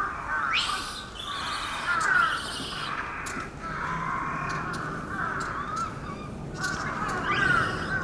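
A chorus of many overlapping high animal calls. A few louder, harsh calls stand out about half a second, two seconds and seven and a half seconds in.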